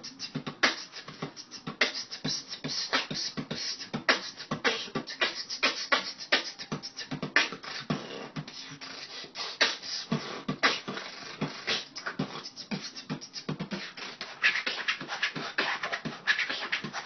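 Beatboxing: a person making rapid percussive drum sounds with the mouth, a dense, steady rhythm of sharp hits.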